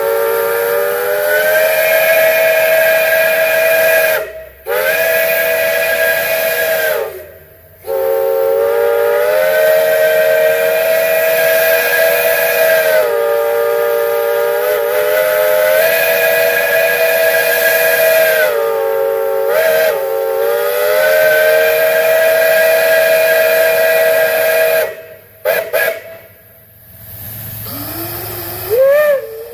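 A large chime whistle sounding a chord of several low notes together in long blasts, broken by short gaps about four and seven seconds in and again near the end. The chord sags in pitch at each break and swoops up as the next blast starts.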